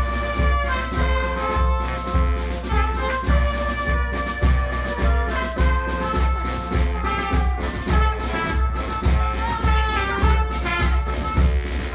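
Brass street band playing a tune, horns carrying the melody over a steady low beat of about two pulses a second.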